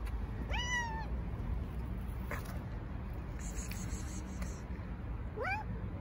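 Stray cat meowing twice: a short arching meow about half a second in and a short rising meow near the end.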